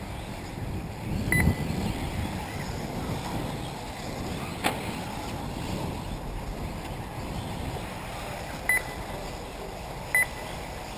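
Wind buffeting the microphone over steady outdoor background noise, with three short high electronic beeps about one and a half, eight and three-quarters and ten seconds in, and a single sharp click near the middle.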